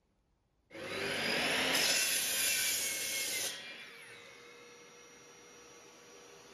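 A power tool abrading metal starts suddenly about a second in and runs loudly for under three seconds. It then drops to a quieter steady running sound with a faint whine.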